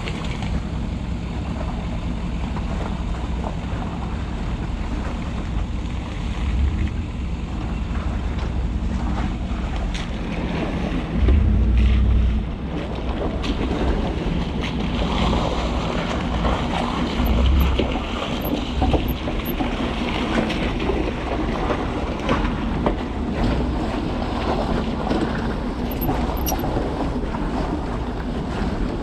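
Ford F-250's 6.7-litre Power Stroke V8 diesel running at low speed as the truck crawls through mud, with the engine swelling louder for about a second around eleven seconds in. Tyres splash and slosh through muddy puddles, most of all in the middle stretch, over some wind noise on the microphone.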